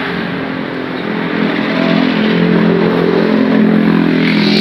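Road traffic: a passing motor vehicle's engine running steadily close by, growing slightly louder.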